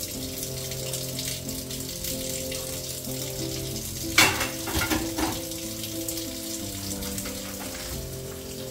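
Kitchen tap running into a sink while dishes are washed, a steady splashing hiss, with a sharp clatter of crockery about four seconds in and a smaller clink a second later. Soft background music with slow sustained low notes plays under it.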